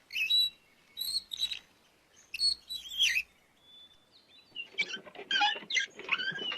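Small birds chirping: short high calls about once a second, then a busier run of warbling calls in the last couple of seconds.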